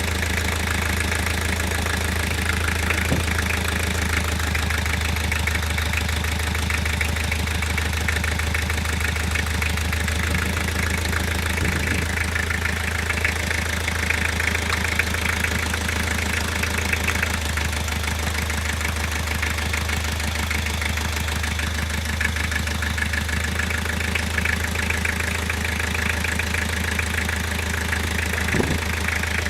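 Toyota diesel engine idling steadily with a rapid, even pulse and a knock running through it, a knock whose source the owner is trying to find.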